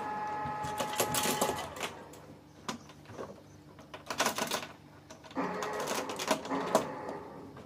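A small electric motor whirring steadily for about the first two seconds, with spells of metallic clattering and rattling about a second in, around four seconds in, and again from about five and a half to seven seconds.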